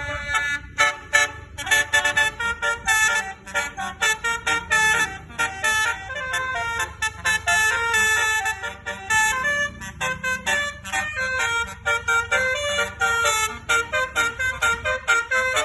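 Bus basuri horn, a multi-trumpet musical air horn of the telolet kind, playing a fast melody of short, choppy notes over a low hum.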